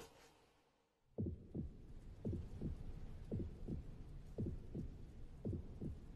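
Heartbeat sound effect: double low thuds, lub-dub, about one pair a second, starting about a second in.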